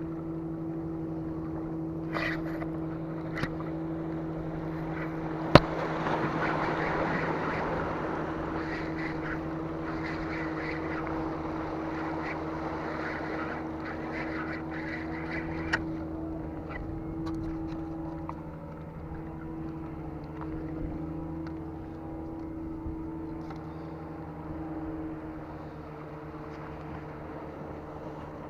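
Boat engine running with a steady low hum, its pitch dipping slightly about two-thirds of the way through. A rushing hiss swells in the middle stretch, and a few sharp clicks sound over it, the loudest about five and a half seconds in.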